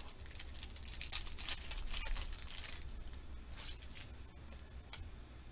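A Pokémon booster pack's foil wrapper being torn open and crinkled in the hands, a dense crackling for the first two to three seconds and a shorter crinkle a little later.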